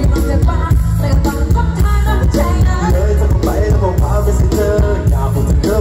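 Live Isan mor lam band music over a loud concert PA: heavy bass and drums, with a voice singing.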